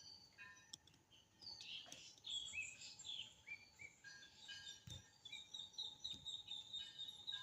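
Nestling chicks a few days old cheeping: many short, high chirps, settling into a fast, even run of thin peeps about five seconds in. Faint.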